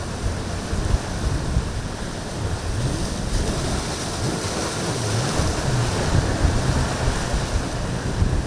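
Strong wind buffeting the microphone over breaking surf and choppy waves. A boat's outboard motor runs faintly underneath, its pitch bending up and down around the middle.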